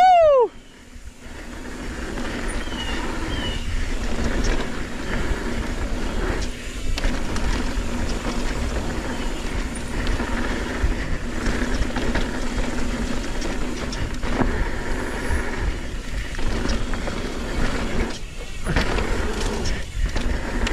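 Mountain bike rolling fast down a dirt trail: steady tyre rumble and wind noise with scattered small knocks from the terrain, opened by a rider's loud whoop that rises and then falls in pitch.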